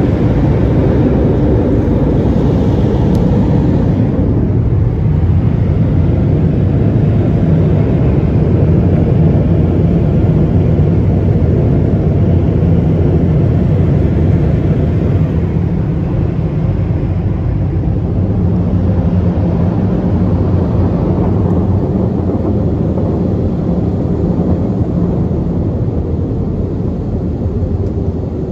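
Car wash tunnel dryer blowers running, a loud steady rush of air heard from inside the car as it passes beneath them. The hiss thins a few seconds in and the noise fades slightly near the end.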